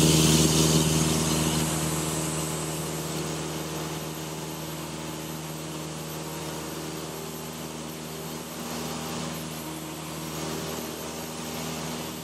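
Cessna 172's four-cylinder piston engine and propeller running steadily in flight, heard inside the cockpit as a constant hum with a hiss of airflow. It is loudest at the start and settles lower over the first few seconds.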